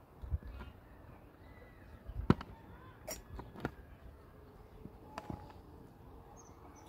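A hand trowel scraping through wet mortar and knocking against a metal mixing basin: scattered sharp clicks, the loudest a little over two seconds in.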